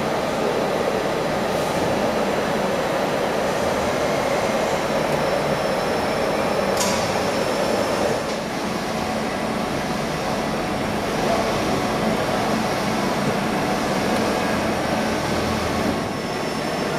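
1987 Juaristi TS 1 CNC horizontal machining centre running under power: a steady mechanical whir and hum. A brief high squeak comes about seven seconds in, and the sound drops slightly and changes a little about a second later.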